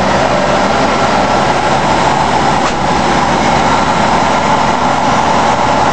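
1988 Ford F-150's 4.9-litre (300) inline-six engine running steadily just after a cold start, after the truck sat three months with a dead battery.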